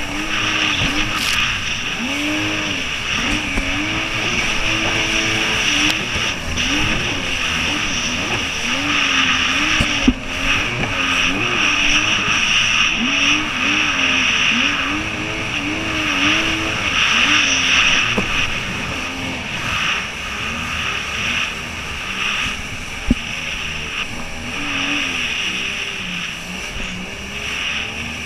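Jet ski engine running at speed, its pitch rising and falling over and over, over a steady rush of water spray and wind. A few sharp knocks stand out, one about ten seconds in and another near the end.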